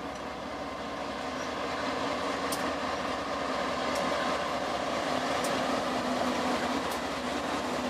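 BNSF GE diesel-electric locomotives pulling a freight train out under power, their engines running with a steady drone that grows louder as they pass. Faint sharp ticks come about every second and a half.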